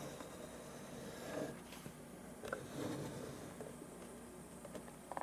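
Faint, steady hum of a SensoryMoon 8-inch plasma ball lamp running, with a few soft clicks of handling.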